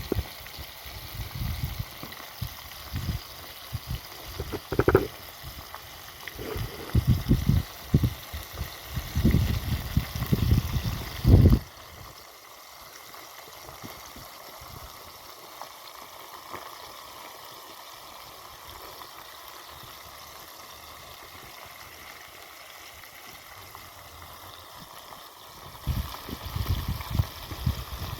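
Steady rushing noise of water, with low gusts of wind buffeting the microphone for the first twelve seconds and again near the end.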